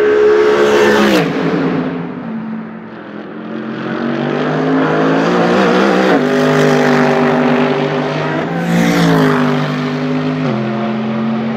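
2016 Mercedes-AMG GT3 race cars' naturally aspirated 6.2-litre V8 engines running at speed as they pass one after another. The engine note falls in pitch as a car goes by about a second in and again around nine seconds, then drops with a sudden step near the end.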